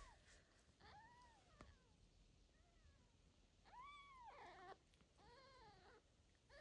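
Newborn kittens mewing faintly: a few thin, high, arched cries, the loudest and longest about four seconds in.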